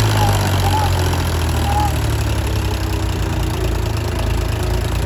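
Diesel engine of the backhoe or tractor running steadily at low revs, a constant low hum.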